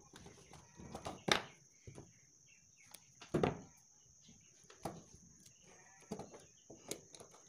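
Faint scattered clicks and taps of hands handling electrical wires and a miniature circuit breaker on a wooden board, the loudest knocks about a second in and about three and a half seconds in.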